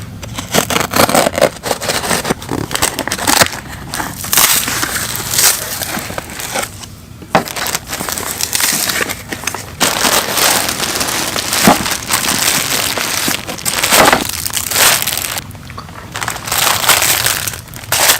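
Irregular crunching and crinkling, in close, uneven bursts with brief pauses, like handling or stepping on something that crackles.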